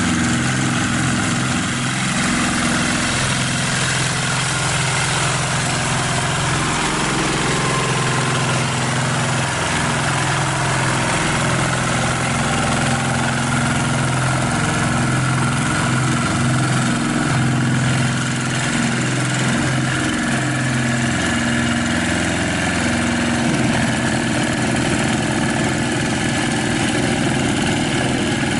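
Single-cylinder diesel engines of two walk-behind hand tractors running steadily under load while pulling through a muddy paddy, their note shifting a little, with a change in the engine note about two-thirds in.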